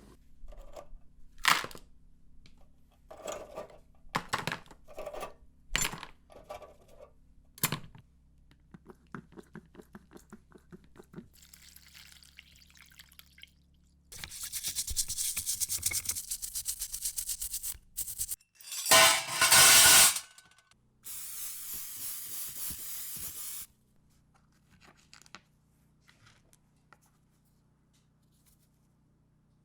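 Clicks and knocks of small parts being handled and set down, then three long bursts of hissing spray, the middle one the loudest.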